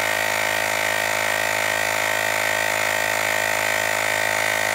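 Battery-powered handheld tyre inflator's small electric compressor running steadily, pumping air into a bicycle tyre. It gives an even, unchanging motor drone with no change in speed.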